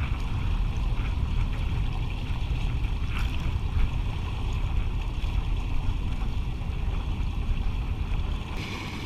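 Wind rumbling on the microphone over the wash of the sea aboard a boat, steady; near the end the low rumble drops away and a higher hiss takes over.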